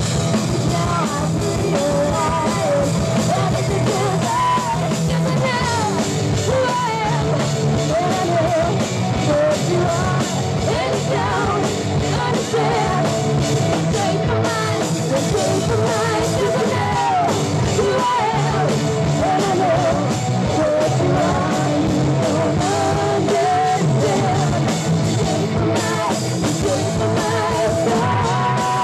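Live punk-style rock band playing loud: distorted electric guitars, bass guitar and drum kit, with singing over them. It is recorded close to the PA speakers, so the sound is harsh and distorted.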